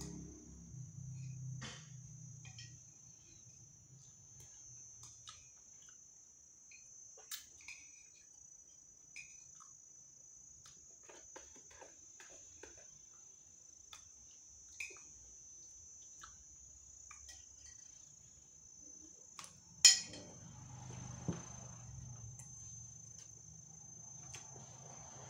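Steady high chirring of crickets in the background, with scattered light clinks of a metal spoon on a ceramic plate and one sharper clink about twenty seconds in. Low chewing noises are heard near the start and in the last few seconds.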